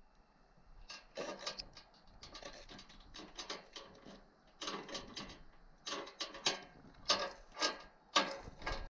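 Irregular clicking, scraping and rattling of objects being handled, in quick clusters that start about a second in and get louder toward the end.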